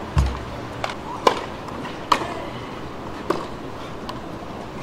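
Tennis rally: racket strokes on the ball about once a second, with fainter ball bounces between, over a steady crowd hush.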